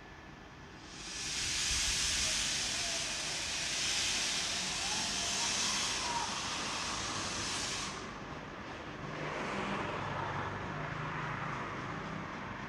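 Loud, steady hiss of steam venting from the steam locomotive Energie 507 at the head of its train. It starts about a second in and cuts off sharply at about eight seconds, giving way to a lower, rougher running sound from the standing train.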